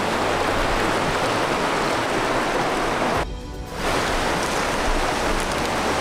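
Mountain river water rushing over rocks in shallow riffles, a steady wash of water noise that briefly drops away about three seconds in.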